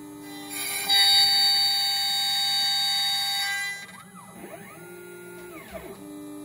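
CNC router spindle running at 24,000 rpm, its bit cutting into a quarter-inch board: a loud high whine with hissing cutting noise from about a second in. Near four seconds it drops quieter, and tones glide up and down in pitch as the machine moves.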